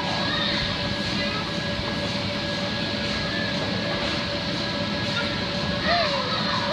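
Steady whooshing drone of the electric air blowers that keep the inflatable slide and bounce houses inflated, with a constant hum in it. A short voice call rises and falls near the end.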